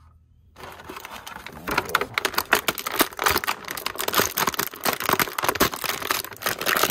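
Clear plastic packaging crinkling and crackling in dense, loud bursts as an action figure is pulled out of its plastic bag and tray, starting about half a second in.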